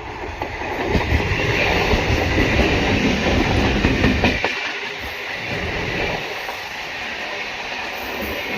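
A train passing close by. The noise builds over the first second, stays loud until about four seconds in, then drops suddenly to a lower, steady running sound.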